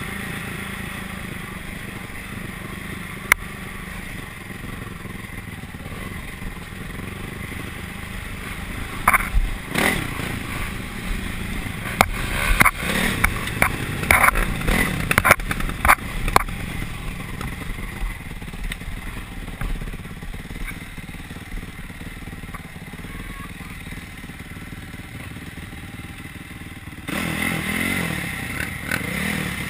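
Off-road dirt bike engine running under way, heard through the rider's helmet camera, with a cluster of sharp knocks and rattles about nine to sixteen seconds in as the bike crosses rutted ground. The engine gets louder near the end.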